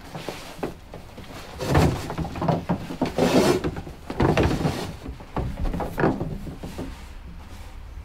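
Handling noise as a mannequin is dressed in a tulle petticoat: fabric rustling, with a few light knocks and thumps at irregular intervals.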